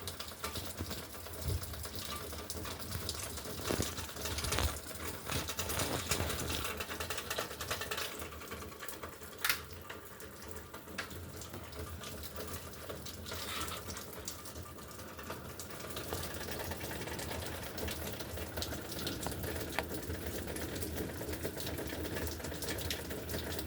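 Rain pattering on a junk pile of aluminum cans, scrap aluminum and a broken dishwasher: a dense, steady ticking of drops on metal, with a few louder single taps.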